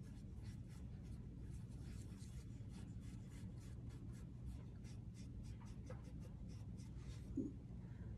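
Small paintbrush stroking acrylic paint onto a painted board in quick, light, repeated strokes, about two or three a second, over a low steady room hum.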